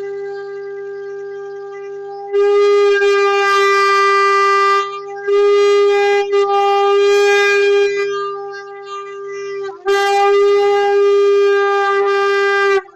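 Conch shell (shankha) blown in one steady, horn-like note. It swells much louder three times with brief breaks between, then cuts off abruptly near the end.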